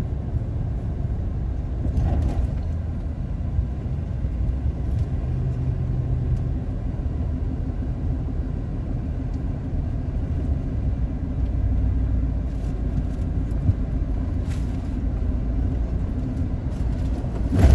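Steady low rumble of a car driving at road speed, heard from inside the cabin: engine and tyre noise on the road, with a faint steady hum in the second half.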